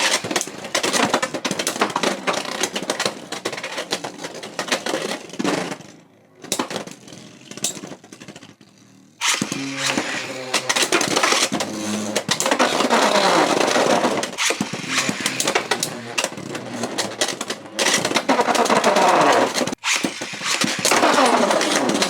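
Beyblade X spinning tops, Pegasus Blast and Scorpio Spear, rattling and clashing in a plastic battle stadium with rapid clacking hits. The sound dies down about six seconds in, then starts again loudly about nine seconds in as a new round is launched.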